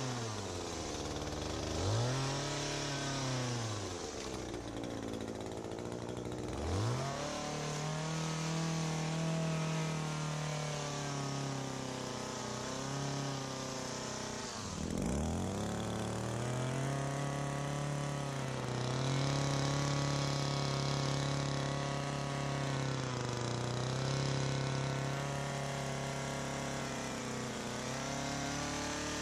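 ECHO PAS2620 power base's small two-stroke engine running at high revs while driving an articulating hedge trimmer attachment. The revs drop and climb back about four times as the throttle is eased and squeezed again, the deepest drop about halfway through.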